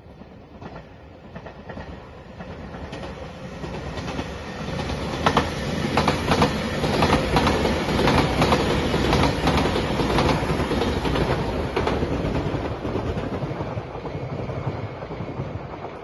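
JR Shikoku 8600 series electric limited express train passing by. It swells up, is loudest midway with a run of sharp wheel clacks over the rail joints, then fades away.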